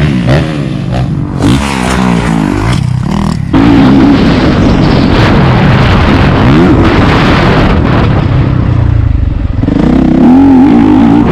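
Dirt bike engines revving up and down through the gears as riders pass on a motocross track. About three and a half seconds in it turns abruptly much louder and closer: a bike's engine running hard from on board over rough ground, with wind noise, and revving again near the end.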